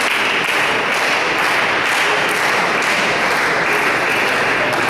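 Crowd applauding, a steady dense clapping that holds its level throughout.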